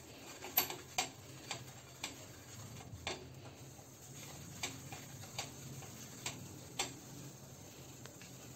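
Light clicking taps of an eggplant end, dipped in mustard oil, dabbed and rubbed over a frying pan to grease it. About nine short sharp clicks come at irregular intervals, roughly every half second to a second, over a faint low hum.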